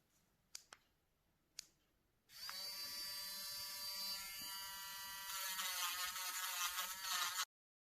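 A few short clicks, then an electric nail drill's motor starts about two seconds in and runs with a steady high whine. The pitch wavers slightly later on, and the sound cuts off suddenly near the end.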